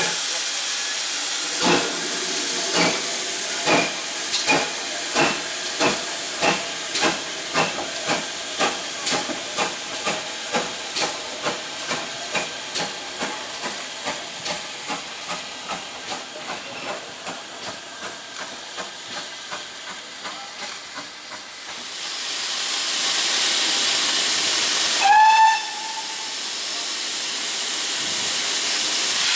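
Steam locomotive (GWR Hall class 4-6-0 Swithland Hall) moving off with steam hissing. Its exhaust beats start about one a second and quicken to about two a second while fading as it draws away. After about twenty seconds a loud steady steam hiss takes over, and a few seconds later comes a short steam-whistle blast, the loudest sound, dipping in pitch at its start.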